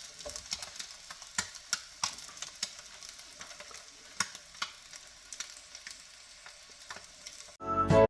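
Food frying on a hot electric griddle: a steady sizzle with scattered sharp crackles and pops. Bright jingling music cuts in suddenly near the end.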